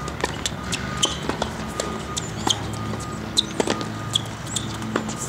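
Tennis balls being hit and bouncing on a hard court during a rally: repeated sharp pops of racket strikes and bounces, over a steady low hum.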